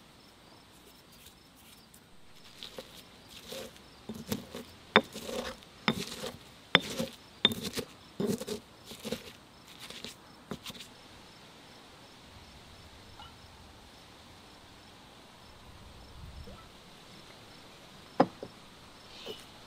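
Stone pestle pounding and grinding spices, chili peppers and garlic in a stone mortar: a run of sharp knocks and scraping for several seconds, then a quieter stretch with one sharp knock near the end. Crickets chirp steadily in the background.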